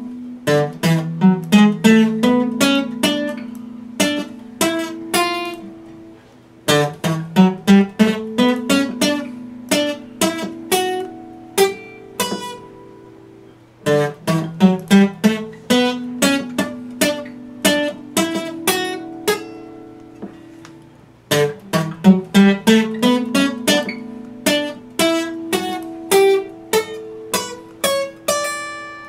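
Epiphone acoustic guitar played solo, quick picked notes in arpeggio-like runs. The runs come in phrases of about seven seconds, each fading out before the next starts, the last one dying away near the end.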